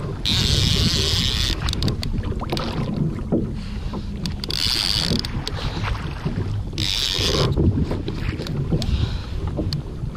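Wind buffeting the microphone, a steady low rumble. Over it come three short hissing rushes of about a second each: near the start, about halfway, and about seven seconds in.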